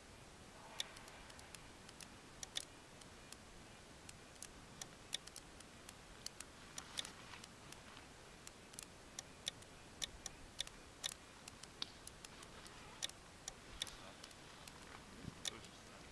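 Small, sharp clicks at irregular spacing, about one or two a second, over a quiet background. They come from a hand working the buttons and knobs of a portable ham radio transceiver, with a pen tapping on a notepad on the table.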